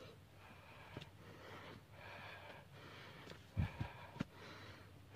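A hiker breathing hard on a steep climb, about one breath a second. Three dull thumps come close together between three and a half and four seconds in.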